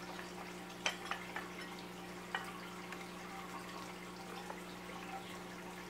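A few faint, light clicks and taps of metal torque converter parts being handled on a wooden table, the sharpest about a second in and another a little after two seconds, over a steady low hum.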